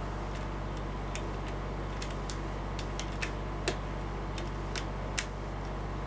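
Lock pick clicking against the pins of a Corbin five-pin cabinet lock during single-pin picking: a dozen or so sharp, irregular metal ticks, the loudest about five seconds in, over a steady low hum.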